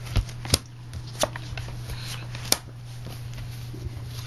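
Playing cards being handled: a hand of cards sorted and fingered, with a few sharp snaps and taps as a card is laid down on a wooden table. The clicks come about four times, the loudest about half a second in and again about two and a half seconds in.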